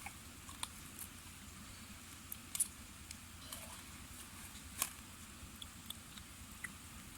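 Faint, scattered light clicks and taps, a dozen or so, the clearest about two and a half and nearly five seconds in, over a low steady background hum.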